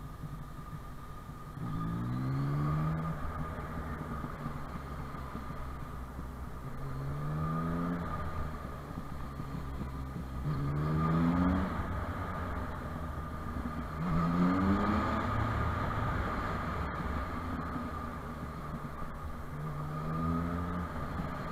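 Motorcycle engine accelerating in pulls: its pitch rises and drops back about five times as it winds up and shifts. A steady low rumble runs underneath.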